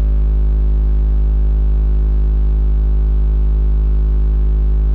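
JL Audio W3v2 car subwoofer in a ported enclosure playing a steady, very deep 52 Hz test tone at about 137 dB inside the car's cabin, driven with roughly 400–480 W.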